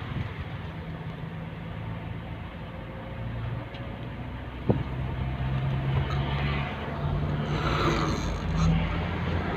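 A person snoring over a steady low rumble, with a single sharp click about halfway through.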